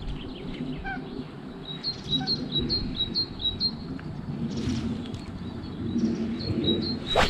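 A small songbird giving runs of short, high chirps, about four a second. A brief loud swish comes near the end.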